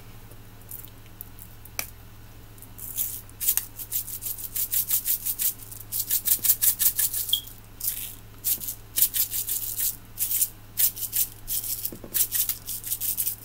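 Candy sprinkles rattling in a small shaker jar, shaken hard over a cake in quick runs of strokes. The shaking starts about three seconds in and goes on with short pauses.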